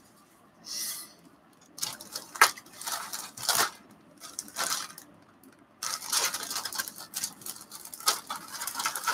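A clear plastic bag holding a model kit's plastic sprues crinkles and rustles as it is lifted and handled. The rustling comes in irregular spells with a few sharper crackles, and gets busier later on.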